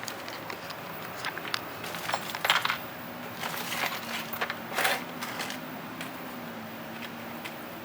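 Small metal hardware handled by hand: a run of light clicks with a few louder scraping, rattling bursts as spacer washers are fitted onto a brake-mount bolt.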